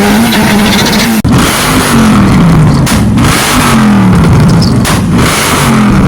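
Car engine revving, its pitch sliding down after each rise, about every two seconds, over a loud steady rush of noise.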